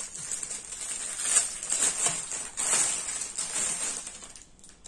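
Clear plastic packaging bag crinkling and rustling in the hands as it is opened and a fabric item pulled out, an irregular run of crackles that dies away near the end.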